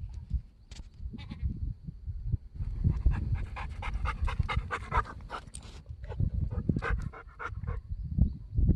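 Gulls calling, a fast run of repeated calls in the middle and a few more near the end, over a steady low rumble.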